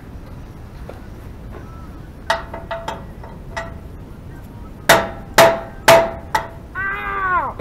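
Hammer striking steel parts of a hay mower: a few light ringing taps, then four hard blows about half a second apart, each with a short metallic ring.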